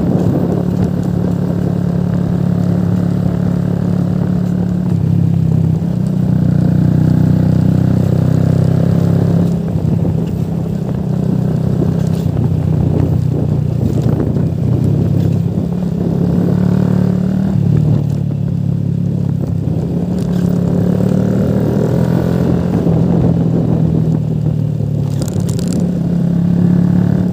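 Motorcycle engine running under way, a steady low drone whose pitch shifts a few times with the throttle.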